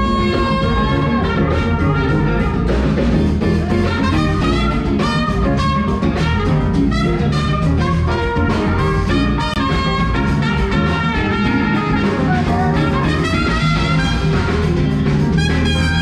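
Music with brass instruments and a steady beat.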